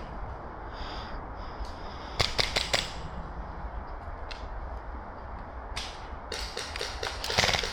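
Airsoft guns firing in quick bursts of sharp cracks: one short run about two seconds in, then a denser, longer run near the end, over a steady low rumble.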